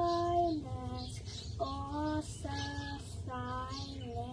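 Dishwasher 'singing': its running machinery gives a series of held, flat whining notes that step up and down in pitch like a tune, over a steady low hum and the hiss of water spray.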